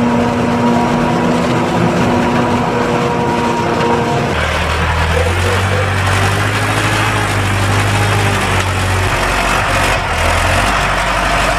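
Tractor engines running. For the first four seconds a John Deere tractor pulling a forage wagon runs with a steady whine; then a deeper engine takes over: a Deutz-Fahr D6507C tractor pushing maize silage with a leveller on the silage clamp.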